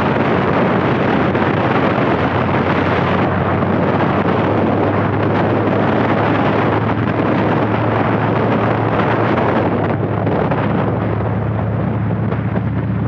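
Harley-Davidson V-twin motorcycle engine running at a steady cruising speed, under heavy wind noise on the microphone. The engine note holds steady, and the high hiss of the wind drops a little about three seconds in and again near the end.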